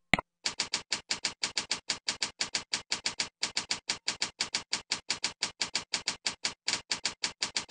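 A single click, then computer keyboard keystrokes typing out text at an even pace, about six or seven keys a second, with a brief pause about three seconds in.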